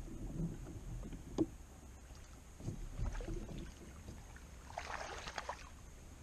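Quiet knocks on a kayak amid light water noise, with a brief splash about five seconds in, as another crappie is fought to the boat.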